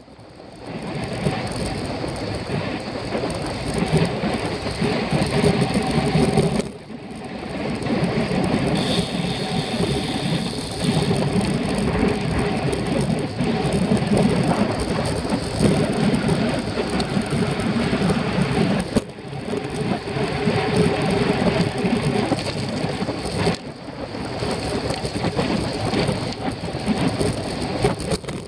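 Wind rush and road noise on a bicycle-mounted camera riding fast on a road bike: a steady rough rumble with a few brief dips. A faint high whine sounds for about two seconds near the middle.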